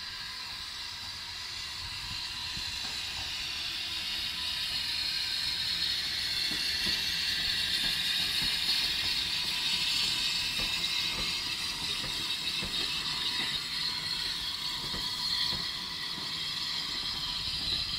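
Railway wagons rattling and clanking as they roll slowly along the track, with many irregular knocks and a steady high hiss and whine from the wheels on the rails. It grows louder toward the middle and eases a little after.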